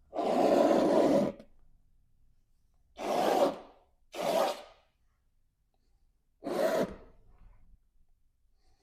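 Palette knife scratching lines into wet oil paint on canvas: four scratching strokes, the first about a second long and the other three shorter.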